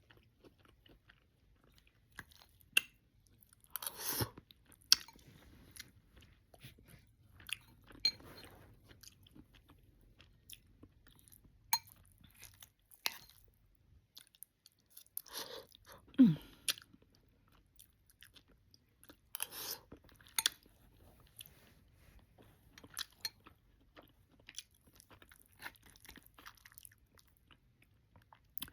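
Close-up mouth sounds of someone eating oxtails with cabbage and rice: irregular chewing, wet lip smacks and clicks, and short crunchy bites. About halfway there is a brief hum that falls in pitch.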